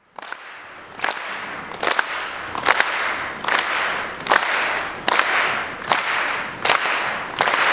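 Finger snaps in a slow, even rhythm, about one every 0.8 seconds, each echoing briefly, over a steady haze of audience noise.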